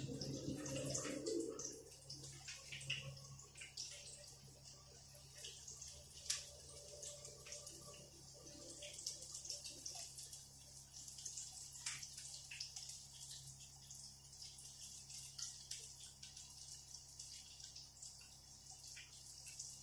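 Flour-coated fish fillets frying in hot oil: a low, steady sizzle with frequent small pops and crackles.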